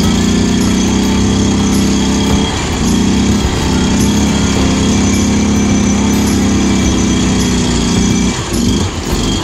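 Riding mower engine, modified for off-road mud riding, running hard at high revs. The pitch holds steady, with a brief dip and recovery about two and a half seconds in and again near the end.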